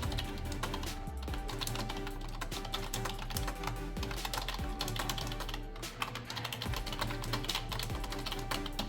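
Rapid typing on a standard office keyboard, a dense continuous stream of key clicks, with background music underneath.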